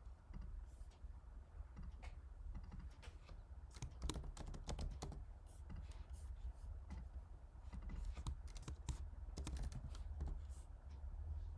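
Typing on a computer keyboard: two short flurries of keystrokes, one a few seconds in and one later on, over a steady low hum.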